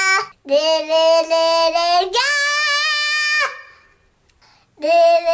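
Young boy singing loudly in long held notes. The pitch jumps up about two seconds in, the voice drops out for about a second, then another long note starts near the end.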